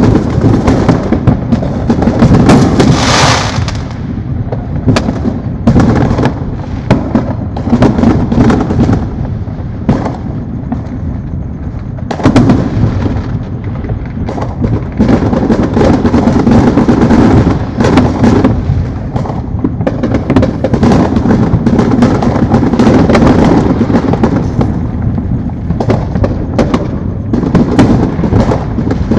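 Many fireworks and firecrackers going off at once: a dense, unbroken run of booms, pops and crackles, many of them illegal consumer fireworks. A hissing burst comes about three seconds in.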